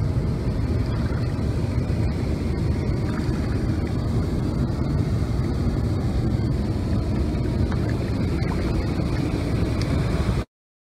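Steady rushing rumble of river water pouring over the dam, which cuts off abruptly about ten and a half seconds in.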